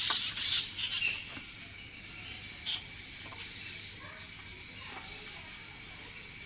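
Evening bird chatter from birds gathering to roost, with short chirps mostly in the first second, over a steady high insect drone.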